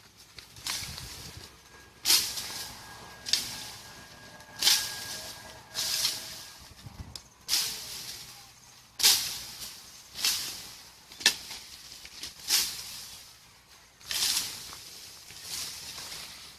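Leafy bushes and branches swishing and rustling under repeated swinging strikes, about a dozen strokes roughly a second apart. Each stroke starts sharply, some with a crisp crack, and the leaves rattle on briefly after it.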